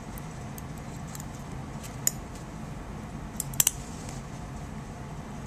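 Small metallic clicks of surgical instruments, needle holder and forceps, handled while suturing: one click about two seconds in, then a quick cluster of three about a second and a half later, over a steady low hum.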